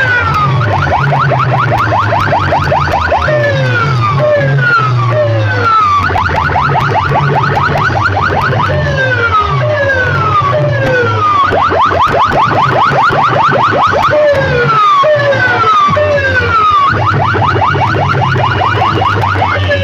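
Electronic siren and alarm effects played loud through large DJ loudspeaker systems: repeated falling whoops alternate with stretches of fast warbling chirps, over a heavy stepping bass line.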